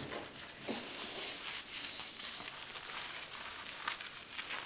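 Hands scrubbing a small dog's wet fur in a bathtub: soft, uneven wet rubbing with small splashy ticks.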